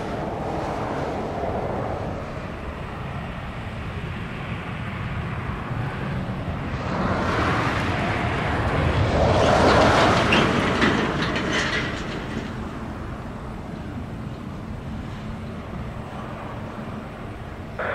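Jet airliner noise: a steady rumble that swells louder about seven seconds in, peaks near ten seconds and fades again.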